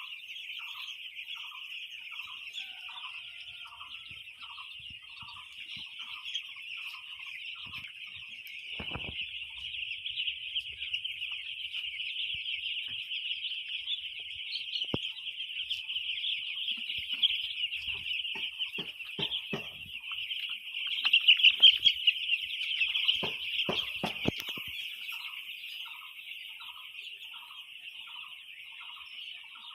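Chickens clucking in bursts of short sharp calls, loudest a little past the middle, over a steady high-pitched drone. A short chirp repeats about twice a second near the start and again near the end.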